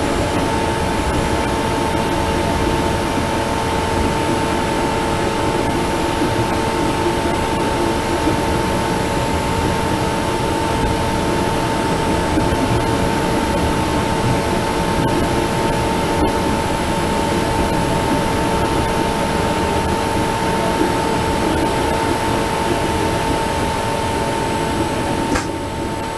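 Onboard running noise of a TTC streetcar under way: a steady rumble of wheels on rails with a constant hum. The noise drops a little near the end.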